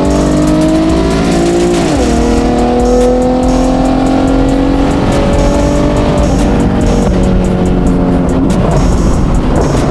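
Tuned Infiniti Q50's V6 engine heard from inside the cabin, pulling with its pitch slowly climbing, then dropping sharply about two seconds in as the revs fall, and twice more near the end.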